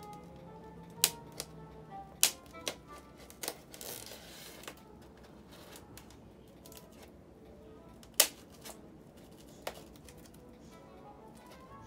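A blade cutting along the lid seam of a polystyrene foam box: scattered sharp clicks and taps, about six in all, with a short scraping rasp about four seconds in.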